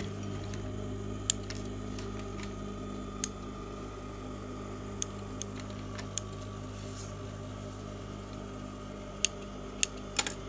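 Steady low hum with a few sharp clicks scattered through it, about seven in all and two or three close together near the end, from handling at the sewing machine just after it stops stitching.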